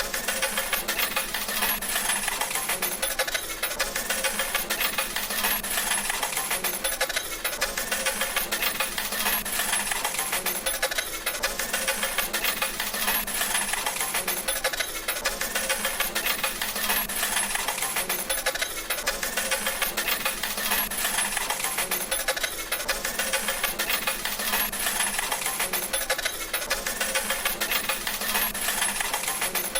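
Slot machine paying out: coins dropping and clattering in a rapid, unbroken stream.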